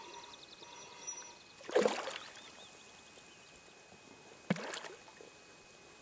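Two short splashy swishes of water about two and a half seconds apart, the second starting sharply. A bird trills faintly in the first second and a half.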